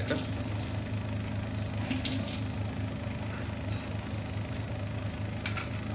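Coconut oil being poured into a clay cooking pot, a faint liquid pour over a steady low hum.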